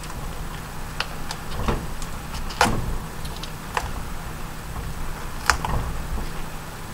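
Leaves being snapped off a raw cauliflower head by hand: scattered crisp snaps, about five, the sharpest about two and a half and five and a half seconds in.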